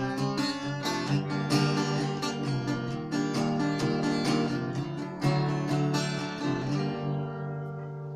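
Acoustic guitar strumming chords in a steady rhythm. Near the end the strumming stops and a last chord rings on, slowly fading.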